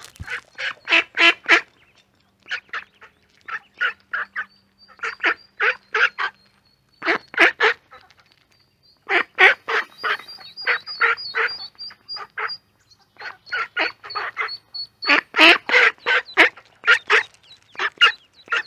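Duck quacking in quick runs of several short calls, loudest about three quarters of the way through, over faint high-pitched peeping of ducklings.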